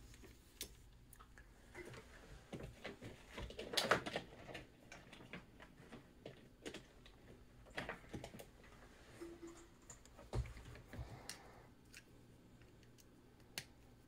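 Scattered light clicks and rustling from a USB-C cable and a pen-style soldering iron being handled and set down on a silicone bench mat, busiest about four seconds in, with a soft thump around ten seconds.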